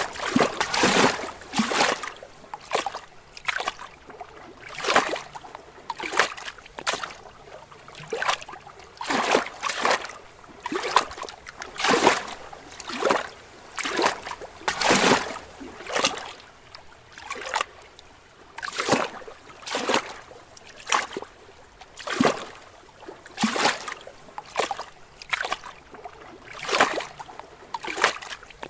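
Small lake waves lapping against rocks: irregular little splashes and slaps of water, about one a second, some louder than others.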